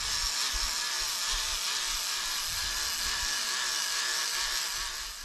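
Fishing reel winding line in from deep water, a steady mechanical whirring that stops near the end, with the rig coming up without a fish.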